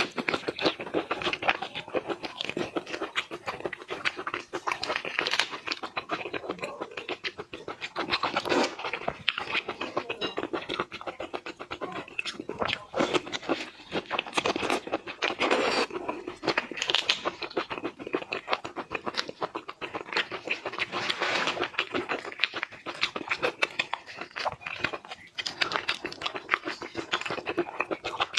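Close-miked mukbang eating sounds of shellfish, likely shrimp: dense, continuous crunching and crackling with wet chewing and the occasional tearing of shell.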